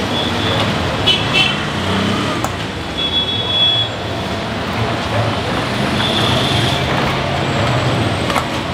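Street traffic: a steady rumble of passing vehicles, with a few short high-pitched tones about a second, three seconds and six seconds in.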